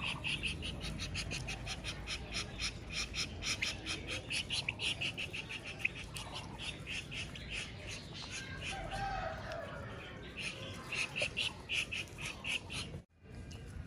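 Shamo aseel chicks pecking grain from a plastic feed bowl: a rapid run of small clicks, about five a second, with a brief call about nine seconds in. The sound cuts off abruptly near the end.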